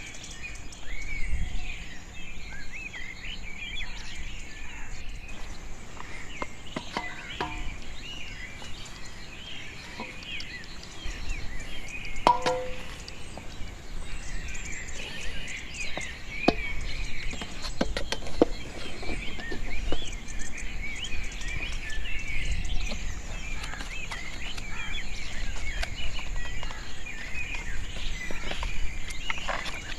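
Many small birds chirping continuously in overlapping short calls, with scattered sharp clicks and knocks and a low rumble underneath.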